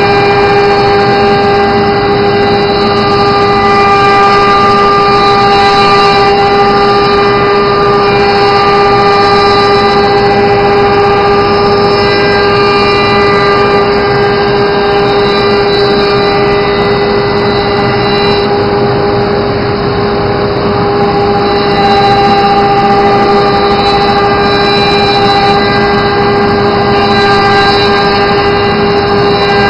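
Spindle of an automatic-tool-change CNC router running with a loud, steady whine over a constant hiss.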